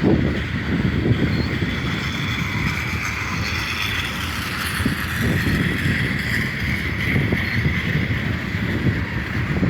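Freight cars of a passing Canadian Pacific mixed train rolling by with a steady low rumble and irregular wheel clacks, over a steady high-pitched whine.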